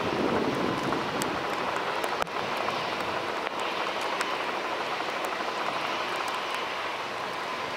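Distant twin-engine jet airliner at takeoff thrust on its takeoff roll down a wet runway: a steady rush of engine noise with a faint whine.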